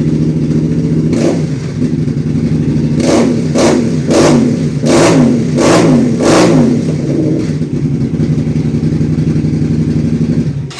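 Kasinski Comet 650 two-cylinder V-twin motorcycle engine with a sport exhaust idling, warm. It is blipped once about a second in, then revved in six quick throttle blips from about three to six and a half seconds. It settles back to a steady idle and cuts off abruptly at the end.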